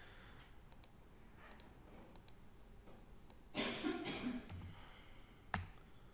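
Faint clicking of a computer mouse and keyboard while a file is renamed. About three and a half seconds in there is a louder noisy burst lasting about a second, and near the end a single sharp click.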